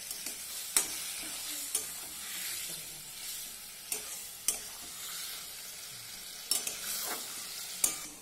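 Metal spatula stirring and scraping drumstick and potato pieces in a thick mustard-poppy paste in a metal kadai, with a steady sizzle of frying as the paste is fried down. Sharp knocks of the spatula against the pan come at uneven intervals, about seven in all.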